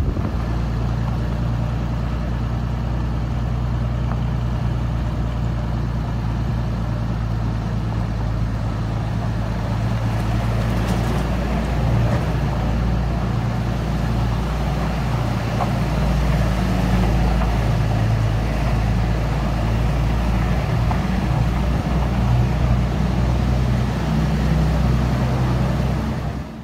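A truck's engine runs steadily with tyre and road noise, heard from inside the cab while driving along a dirt road. There is a constant low engine hum under a rushing haze.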